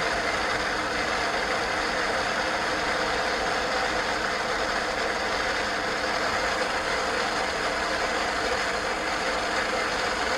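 Steady electronic static hiss with faint steady tones in it.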